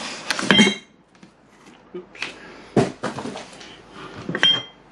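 Hands rummaging in a cardboard box: cardboard and packaging rustle and knock, with a bright clink of glass about half a second in and another near the end, and a dull knock in the middle.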